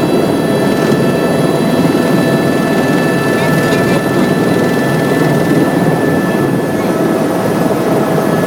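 Helicopter engine and rotor noise heard from aboard the helicopter: a steady, loud rumble with several constant whining tones above it.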